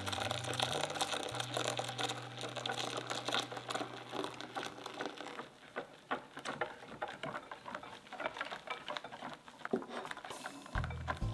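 Silicone-coated balloon whisk beating a thin egg-yolk, sugar and warm-milk mixture in a glass bowl: rapid light tapping and swishing of the wires against the glass and through the liquid.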